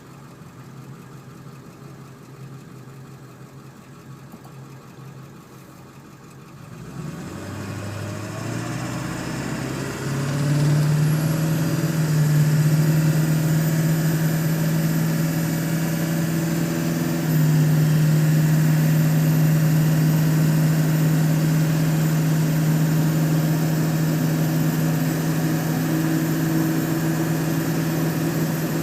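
A 1999 Ford 7.3 Powerstroke turbo-diesel V8 with a 4-inch straight pipe idles quietly, then about seven seconds in it revs up over a few seconds and holds at raised rpm. A high-pitched turbo whistle climbs in with the revs and holds steady alongside the engine note.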